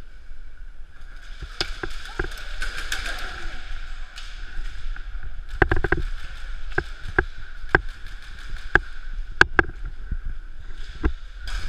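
Airsoft gunfire in a close-quarters game: scattered sharp snaps, single shots and short clusters at irregular intervals, over a steady high background hum.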